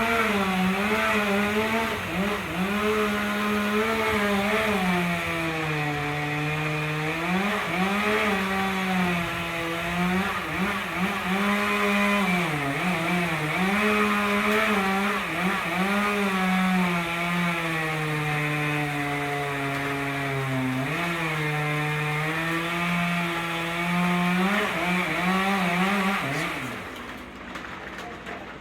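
Two-stroke chainsaw cutting wood under load, its engine pitch repeatedly sagging as the chain bogs in the cut and then picking back up. The engine note drops away near the end.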